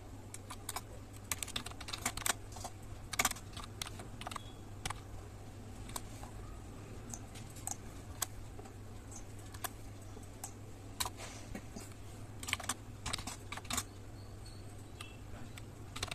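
Typing on a black low-profile computer keyboard: irregular key clicks, some single and some in quick runs, over a low steady hum.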